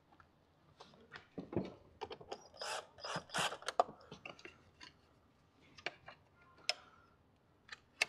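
Cordless power tool running in two short bursts of about half a second each near the middle, spinning the battery's positive terminal clamp nut tight. Clicks and knocks of the terminal clamp and tool being handled come before and after.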